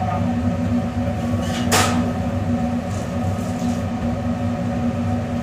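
Steady mechanical hum of commercial kitchen machinery, droning without change, with one brief sharp hiss a little under two seconds in.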